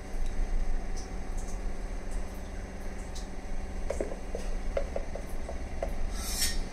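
A steady low mechanical hum, with a few light clicks of a spoon against the pan about four to five seconds in and a brief scraping hiss near the end, as sambar powder is spooned into a kadai of tamarind gravy.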